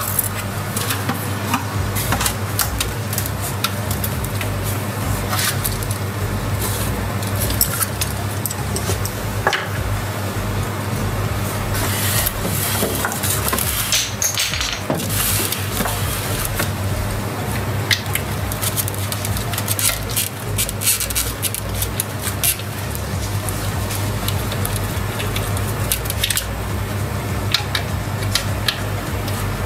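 Background music with a steady bass beat, over repeated clicks, clinks and rattles of a plastic water-heater housing, screws and metal parts being handled with a screwdriver as the unit is taken apart.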